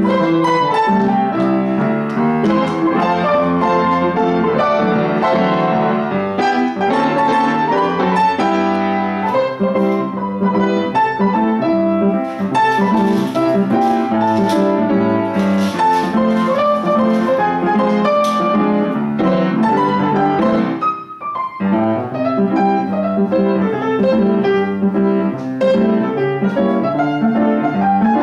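Yamaha Disklavier upright piano playing a Christmas song on its own, with the keys moving and no one at the keyboard. A steady flow of melody and chords, with a brief break about three quarters of the way through.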